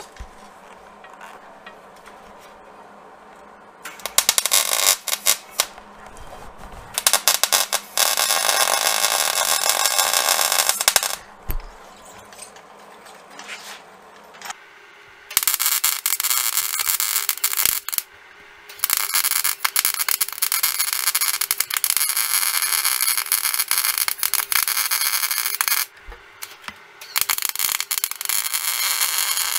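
MIG welding arc crackling in a series of runs a few seconds long with short pauses between, starting about four seconds in. The beads are laid on a steel bracket whose paint was not ground off.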